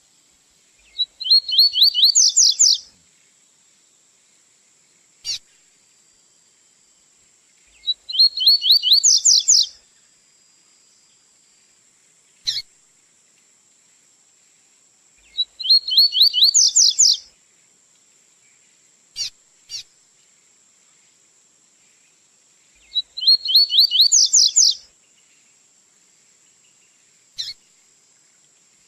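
Male double-collared seedeater (coleiro) singing the 'tui-tui' song: four phrases about seven seconds apart, each a quick run of repeated notes rising in pitch, with short single chirps in between. A faint steady high tone runs underneath.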